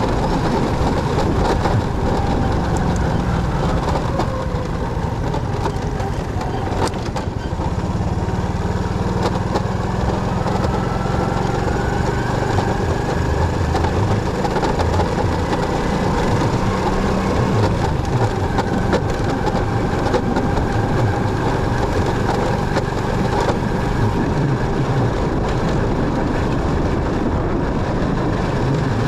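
Motorcycle being ridden: steady engine running with road and wind noise, the engine pitch drifting up and down with speed.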